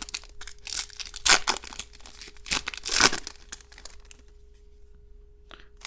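Chrome baseball cards and their foil pack wrapper being handled by hand: a run of crinkling and rustling sounds as the cards are shuffled through, busiest in the first three seconds and sparser after that.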